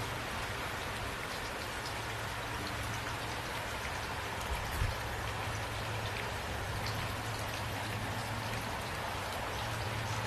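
Steady rainfall with individual drop hits heard through it, over a low steady hum. There is one soft low thump about five seconds in.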